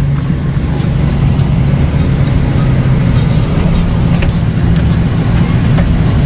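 Steady low drone of a car's engine and road noise heard from inside the moving car.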